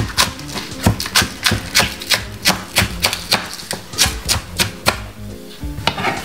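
Knife chopping spring onion on a cutting board, about three quick cuts a second, stopping about five seconds in.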